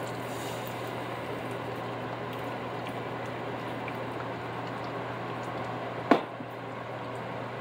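Seasoning water simmering steadily in a frying pan on the stove, with one sharp clink about six seconds in.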